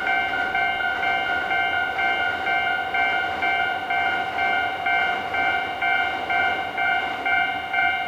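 Japanese railway level-crossing warning bell ringing, an electronic ding repeating about two and a half times a second, with a steady wash of noise beneath it.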